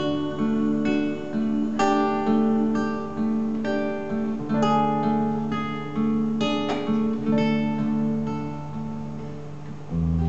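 Solo acoustic guitar playing a fingerpicked passage: a steady flow of plucked notes over held bass notes. The playing eases off near the end, then a deep new bass note and chord ring in.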